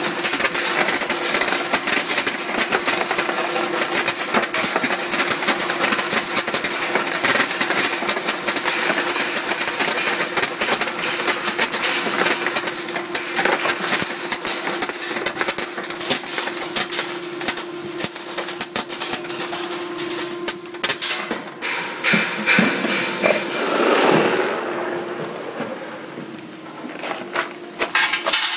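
Optical colour sorter machine sorting fluorite stone: a dense, rapid clatter of stones pouring through it over a steady machine hum. The clatter thins out over the last few seconds.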